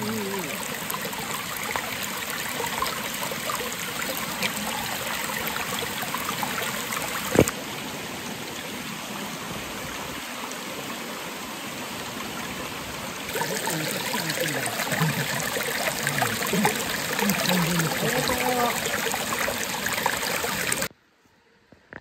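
Water running steadily in a small stream or waterfall, an even rushing hiss with a sharp click about seven seconds in. It gets louder about thirteen seconds in and cuts off a second before the end.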